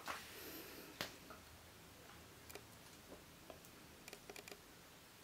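Near silence: quiet room tone with a few faint, scattered clicks, a small cluster of them near the end.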